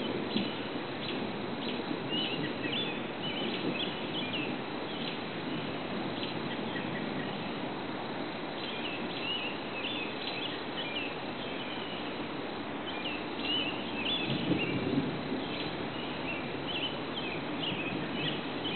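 Outdoor ambience: many short, high chirps from birds or insects repeating in clusters over a steady low background rush, with a louder low rumble swelling briefly about fourteen seconds in.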